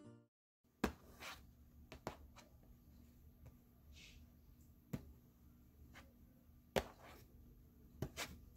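Faint scattered taps and clicks of fingers handling a cardboard brownie-mix box, with a brief soft hiss about four seconds in.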